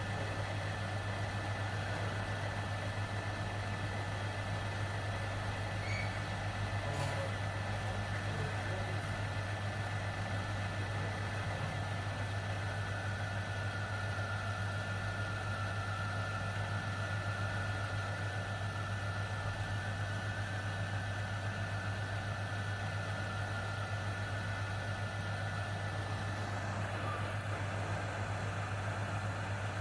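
Hot-air rework gun blowing steadily while heating a capacitor off a laptop circuit board: an even airflow hiss with a low hum and a faint high whine.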